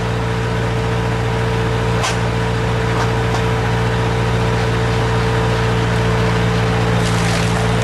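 Skid-steer loader engine running steadily under hydraulic load as it drives a front-mounted log splitter. A few sharp cracks come about two seconds in and again near the end.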